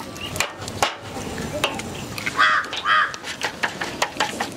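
A crow cawing twice, about two and a half and three seconds in, the loudest sounds here. Underneath, scattered sharp clicks and taps of eggs being cracked into a steel plate.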